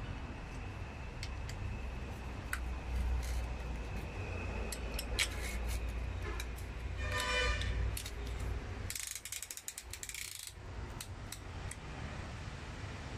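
Ratchet of a band-type piston ring compressor clicking as it is tightened around a piston: a short run of clicks a little past halfway, then a faster, denser run lasting about a second and a half. Scattered small metal clicks sound over a low steady hum.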